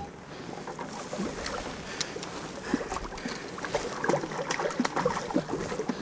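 Water splashing and sloshing in irregular bursts as a hooked carp thrashes at the surface on the line.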